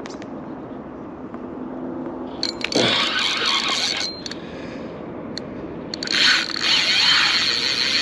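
Fishing reel giving line to a large fish, a loud buzz that comes in about two and a half seconds in, stops after a second and a half, then starts again about six seconds in and keeps going.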